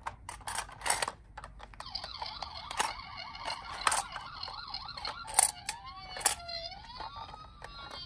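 Plastic toy ambulances clicking and knocking as they are handled in a cardboard box, while a battery-powered toy ambulance plays a faint electronic siren: a fast warbling wail from about two seconds in, turning into slow rising and falling wails about halfway through. The sharpest and loudest sounds are the knocks of the toys.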